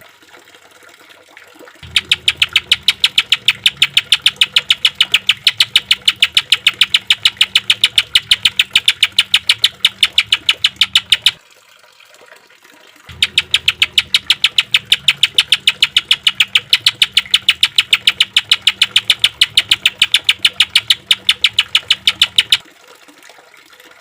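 Green leafbird (cucak ijo) song as a fast, machine-gun run of sharp repeated notes, the 'tembakan' (shots) style. It comes in two long runs of about nine seconds each, with a short pause between them and another near the end.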